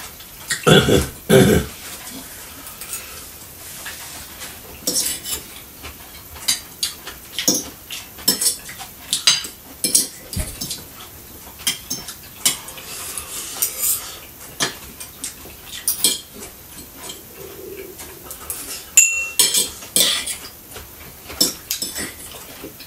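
Forks clinking and scraping against plates during a meal, in irregular light clicks every second or so. One clink near the end rings briefly.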